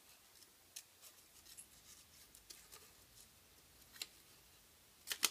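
Scissors making small, faint snips through construction paper, cutting out fine shapes, with a sharper snip about four seconds in and a few louder clicks near the end.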